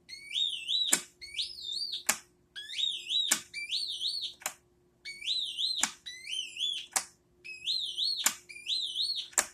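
Hulda Clark syncrometer's audio tone as the probe is pressed to the skin: eight short electronic tones in four pairs, each rising in pitch, then wavering, then cut off by a click. The sound is read as a negative result, not the screechy, high-pitched sound of a positive.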